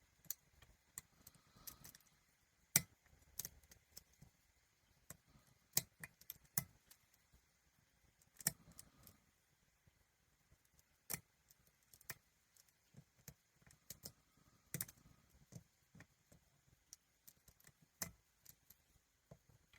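Lock pick and tension wrench working inside a challenge lock: small irregular metallic clicks and taps as pins are set and the plug is worked around, with light handling and scraping between them.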